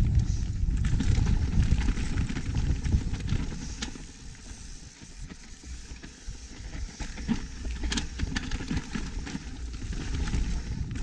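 Mountain bike ridden down a dirt trail: wind rushing over the camera microphone, with the tyres over the ground and the bike's chain and frame clicking and rattling over bumps. The rush eases about four seconds in and builds again toward the end.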